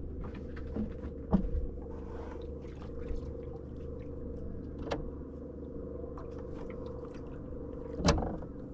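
Small boat motor running steadily at a constant pitch, with a low hum under it. A few light knocks come about a second and a half, five and eight seconds in.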